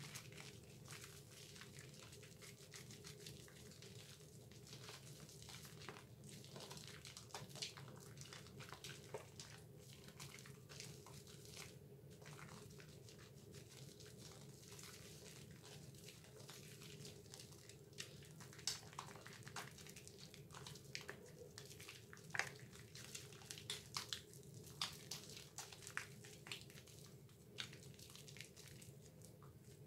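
Hands lathering a wet Dove soap bar: faint squishing and crackling of the foam, with short sharp crackles that come more often in the last third, over a faint steady hum.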